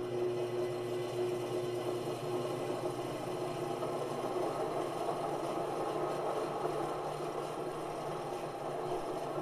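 An over-volted DC motor with worn bearings runs hard, spinning an LP record on its platter with a steady whirring grind. The operator puts the grinding down to the motor's mounting plate rubbing.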